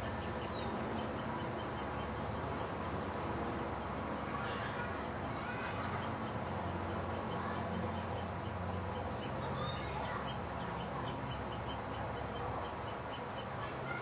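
Woodpecker nestling begging from inside its tree cavity as it is fed: a rapid run of high-pitched squeaky chips, several a second, with an occasional short gliding squeal.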